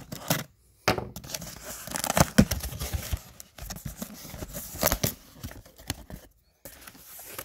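Cardboard shipping box being opened by hand: tape tearing and flaps pulled apart, with crumpled paper packing rustling. The sound is irregular, tearing and crinkling noises broken by a couple of short pauses.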